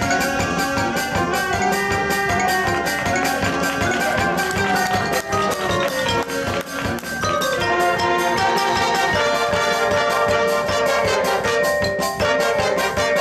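High school marching band playing its field show: brass holding and moving through chords over a steady beat from the marching percussion.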